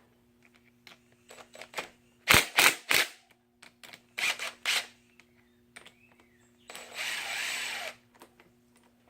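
Hand tools knocking and clinking during motorcycle chain work: three sharp metallic knocks a little over two seconds in, and three more about four seconds in. A steady hiss lasting over a second comes near the end.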